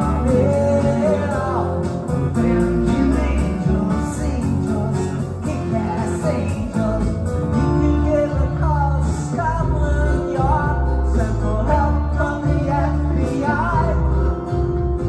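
Two acoustic guitars strummed together under a man's lead vocal, played live as an acoustic duo.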